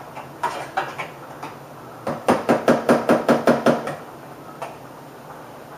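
A metal fork striking a small saucepan in a quick run of about ten clinks, about six a second, after a few lighter taps.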